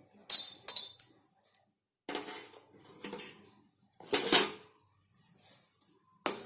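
A spoon clinking and scraping in a kadai as cardamom pods and cloves are dry-roasted. There are a few sharp clinks, the loudest about four seconds in, with softer scraping between them.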